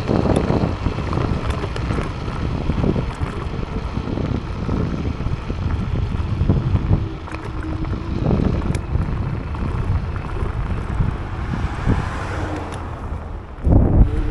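Wind buffeting the microphone and road rumble from a moving Teverun Fighter 11 electric scooter, with a few sharp clicks and rattles. It gets louder near the end.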